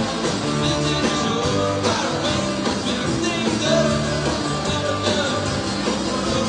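Live rock band playing: electric guitars, bass and drums in a steady, loud full-band passage.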